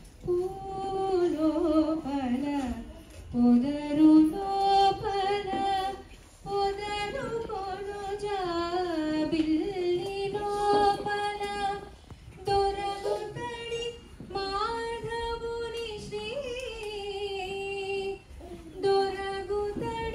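A woman singing solo, a Carnatic-style melody of long held notes with gliding ornaments, pausing briefly for breath a few times.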